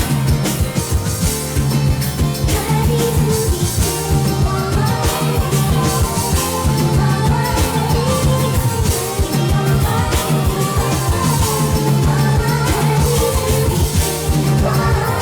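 Loud rock music with a singing voice over a steady, driving beat.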